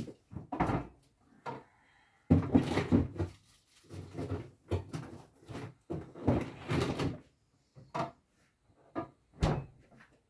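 Kitchen cupboard doors and drawers opening and shutting, with a string of knocks and clatter as things are handled. The loudest bursts come a little over two seconds in and again around six seconds.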